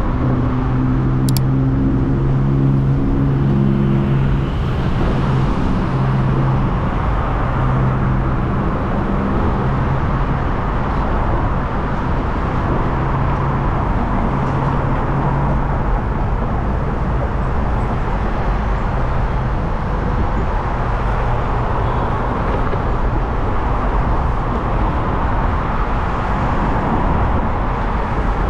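City street traffic heard from a moving bicycle: a steady wash of road noise, with the low hum of a nearby motor vehicle's engine strongest in the first ten seconds. A single sharp click about a second in.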